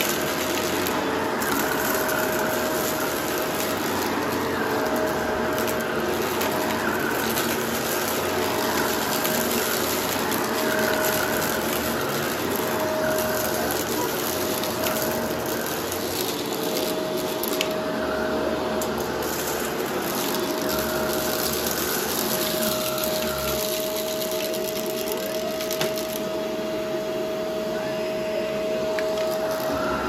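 Vacuum cleaner with a brushroll running over a rug. Its steady whine breaks off and comes back every second or two, then holds unbroken near the end. Scattered small clicks and crackles come from debris being picked up.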